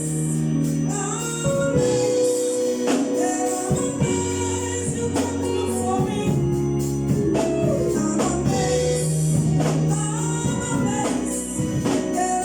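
Gospel choir singing with organ accompaniment and a steady percussion beat.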